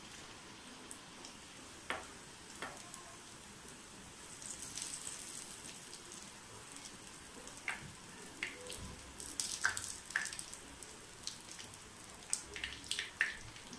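Chicken cutlets deep-frying in hot oil in a pan: a faint sizzle with scattered sharp crackles and clicks. The crackling gets busier a few seconds in and again in the second half.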